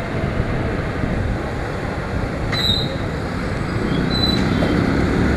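Steady on-board noise of a motorcycle being ridden: engine running with road and wind noise, heard from the rider's position.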